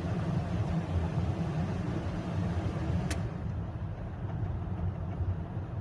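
Toyota Tacoma's heater blower fan running on its high setting, a steady rush of air with a low hum, showing the blower speed control working again. A single sharp click comes about three seconds in, after which the higher hiss drops away.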